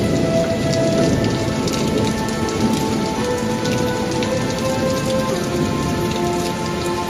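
Rain sound effect: steady heavy rain with a low rumble of thunder dying away in the first few seconds, and a few held tones sounding underneath.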